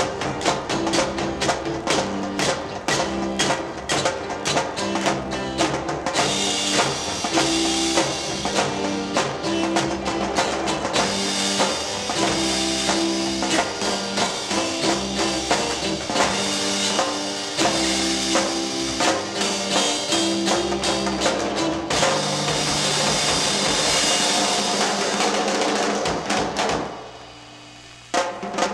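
Early-1970s Korean rock band recording, led by a busy drum kit over bass guitar, with cymbals filling in after the first few seconds. About 27 seconds in the band suddenly drops away, and the drums crash back in just before the end.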